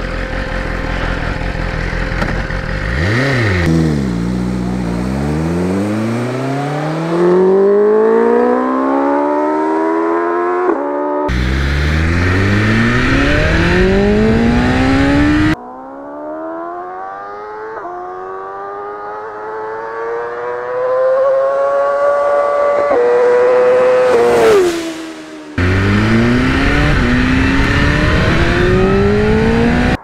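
BMW S1000RR inline-four through a Racefit Growler X titanium slip-on exhaust, accelerating hard in several separate runs, the revs climbing through the gears. Near the end one run's pitch drops sharply as the bike flies by.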